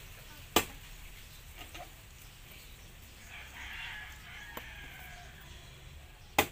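A metal spoon and fork scraping out young coconut meat, with two sharp clicks of metal on the shell, one about half a second in and a louder one near the end. A rooster crows in the background a little past the middle.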